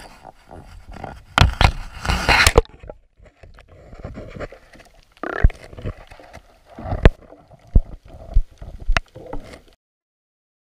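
Water splashing and gurgling around a camera as it is plunged below the sea surface, loudest a second or two in. It is followed by muffled underwater sloshing with several sharp knocks against the camera. The sound cuts off abruptly near the end.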